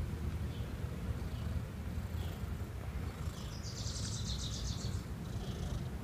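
Outdoor ambience: a steady low rumble with a few faint chirps, and about three and a half seconds in a high, rapid chirping trill of about ten pulses a second that lasts a little over a second.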